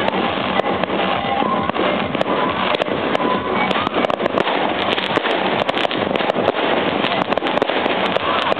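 Fireworks bursting and crackling, many irregular bangs and pops in quick succession, over music and a noisy background.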